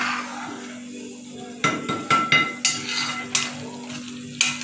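Steel spoon stirring thick gravy in a kadhai. From about one and a half seconds in it knocks and scrapes against the pan about half a dozen times, with brief metallic ringing after some strikes.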